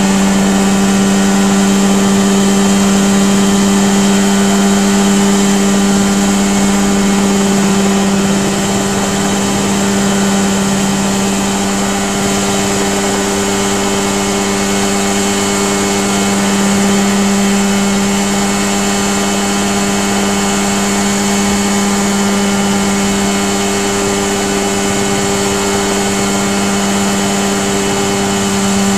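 Mosquito ultralight helicopter's engine and rotor running steadily in a hover: a loud, even drone that holds one pitch throughout.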